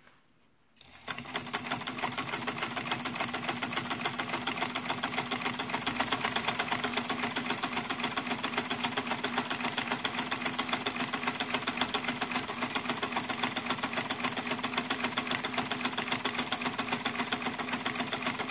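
All-metal 1950s Dressmaker Deluxe sewing machine starting about a second in and then running steadily while sewing a zigzag stitch: a motor hum under a rapid, even clatter of the needle mechanism.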